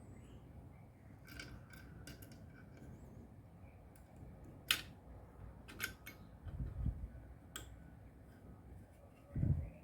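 Scattered sharp clicks and small metallic snips, with two dull thumps in the second half, like small tools and parts being handled on a workbench.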